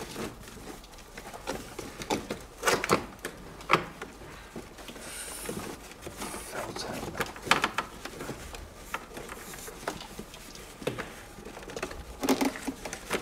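Irregular clicks, taps and rustles of dashboard wiring and felt lining being handled and pulled out, with a louder cluster of knocks near the end.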